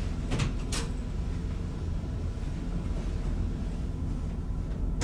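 Steady low rumble of the ferry's onboard machinery heard inside a cabin, with two sharp clicks from the cabin door about half a second in.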